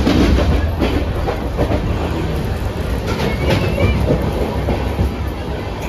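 Pathankot Express passenger train running along the track: a steady low rumble of the wheels with clickety-clack from the rail joints. A brief wavering high squeal comes about halfway through.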